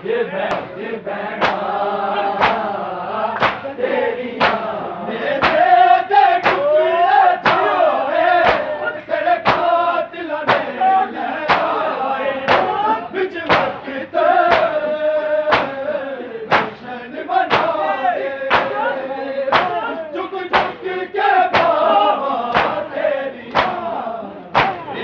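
A crowd of men chanting a mourning lament together while beating their chests in unison, a sharp massed slap roughly once a second under the chant.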